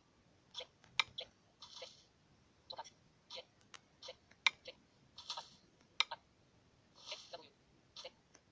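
Light, irregular taps and clicks of fingers on a tablet touchscreen, about a dozen in all, with a few short soft hisses between them.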